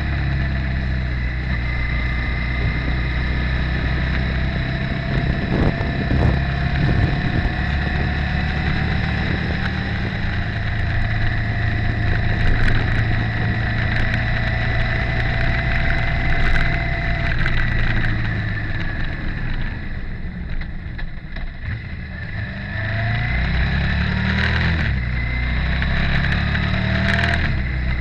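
Motorcycle engine running steadily at road speed, easing off about two-thirds of the way through and then revving up again with a rising pitch.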